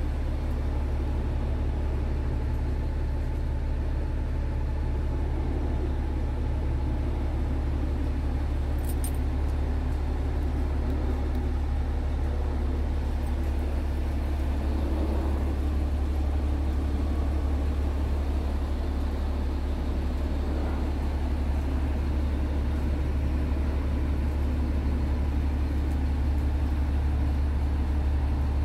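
Scania G tractor unit's diesel engine idling steadily at around 600 rpm, heard from inside the cab, with a brief click about nine seconds in.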